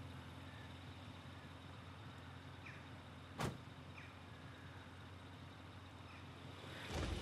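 A car door shuts with a single sharp thud about three and a half seconds in, over a faint steady low hum.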